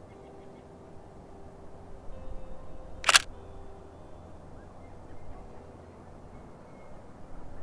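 A single camera shutter click, short and sharp, about three seconds in, over a faint steady outdoor background.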